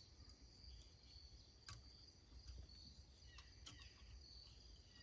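Near silence: a faint, steady high-pitched chirring with a few faint, scattered ticks.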